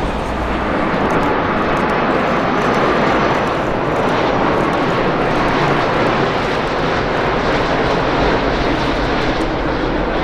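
Jet airliner's engines, a loud, steady rushing noise that builds a little in the first second and then holds.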